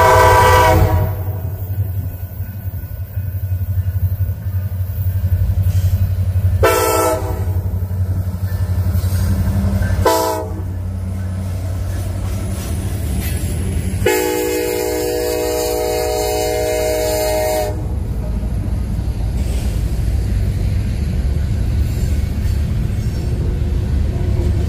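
BNSF freight diesel locomotives passing close by, the lead unit sounding its air horn four times: a long blast at the start, two shorter ones, then a long one held for about three and a half seconds. The diesel engines rumble past, and in the last part the empty coal hopper cars roll by with steady wheel rumble.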